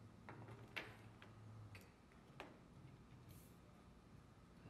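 Faint clicks and ticks of small metal parts being handled as a pressure transducer is threaded into the bottom of an electric pilot housing: about five light ticks in the first two and a half seconds, over a faint low hum that fades about two seconds in.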